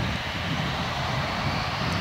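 Jet engines of a four-engined Airbus A340 airliner running on the runway: a steady low rumble with a hiss above it.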